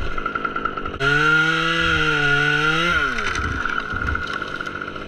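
Chainsaw engine: after about a second of low running it is opened up to full throttle about a second in and held there for about two seconds, then the throttle is released and the revs fall back toward idle.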